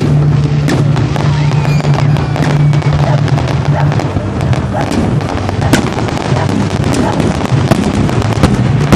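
Fireworks display going off: a continuous run of sharp bangs and crackles from bursting shells, many in quick succession, over a steady low drone.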